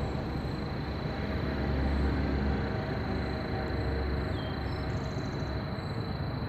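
Steady low rumble of distant machinery, running evenly with a thin high whine above it.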